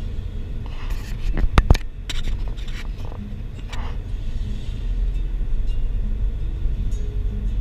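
Car driving, heard from inside the cabin: a steady low road and engine rumble, with a short cluster of sharp knocks or rattles about a second and a half in.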